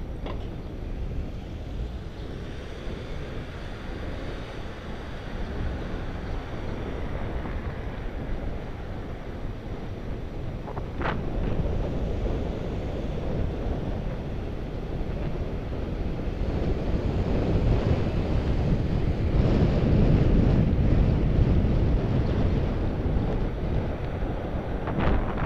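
Wind buffeting the microphone of a camera on a moving bicycle, over a continuous low road rumble, getting louder past the middle. A single short click about eleven seconds in.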